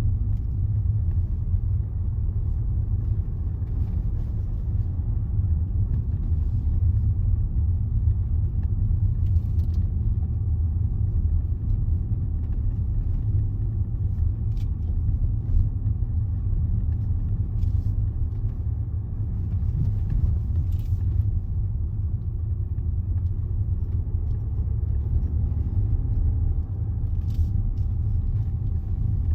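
Steady low rumble of a Range Rover on the move, heard from inside the cabin: engine and tyre noise on the road. A few faint, brief ticks rise above it now and then.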